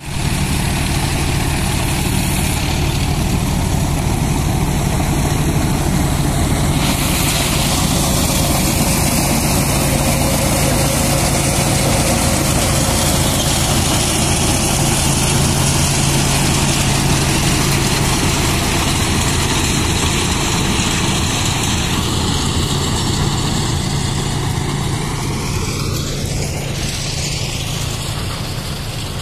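John Deere tractor engine running steadily under load, driving a Mahindra straw reaper, with the reaper's belts, rotors and blower adding a broad steady hiss of chopped straw being blown out. Near the end a pitch slides downward and the sound eases slightly.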